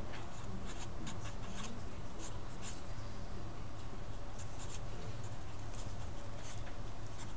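Felt-tip Sharpie marker writing on paper: a run of quick, short scratchy strokes as numbers and letters are written out, over a steady low hum.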